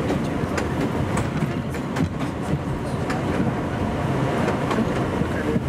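Bombardier R62A subway car running along elevated track: a steady rumble of wheels on rail, broken by irregular clicks and clacks.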